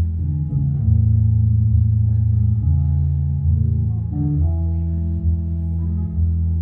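Instrumental music with no singing: plucked guitar over low bass notes that change every second or so.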